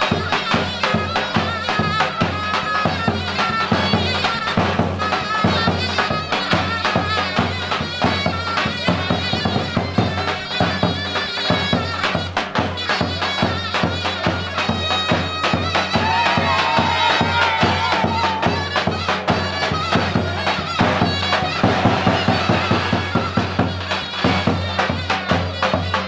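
Loud Turkish folk dance music for a line dance: a reedy wind-instrument melody wavers over a held low drone and a steady, driving drumbeat.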